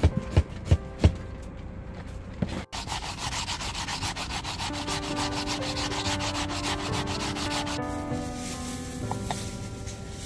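Raw potato being grated on a hand grater: rapid, even rasping strokes that start about two and a half seconds in and grow fainter near the end, with a few knocks in the first second.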